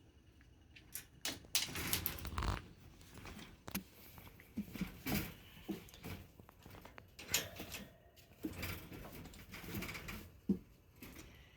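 A pet monkey rummaging at a toy: irregular rattling, scraping and knocking, with one sharp knock near the end.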